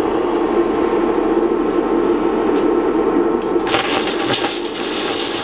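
Lift-TIG welding arc on steel starting a little over halfway through: a loud, steady crackling hiss over a steady hum that runs throughout.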